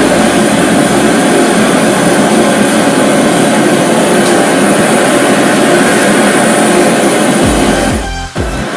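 Three butane blowtorches burning together, a loud steady roar of their flames playing on a steel knife blade. The roar dips briefly near the end.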